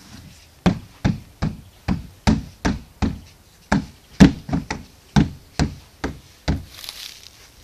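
Hollow plastic sandpit lid being slapped by a small child's hand: about fifteen dull knocks at roughly two to three a second, with a short pause midway. They stop about a second before the end.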